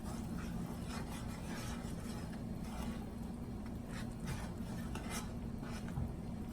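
A utensil stirring and scraping a thick melted-butter and garlic seafood-boil sauce in a pot, in short irregular strokes, over a steady low hum.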